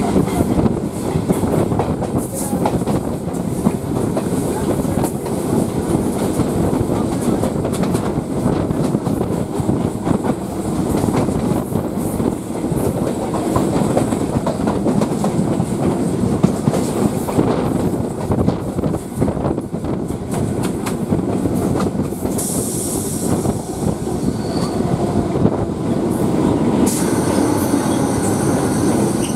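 Electric suburban local train running at speed, heard from its open doorway: steady wheel and coach rumble with a rapid clatter over the rail joints. In the last several seconds a high hiss and thin squeal come in briefly as the train runs into a station over the points.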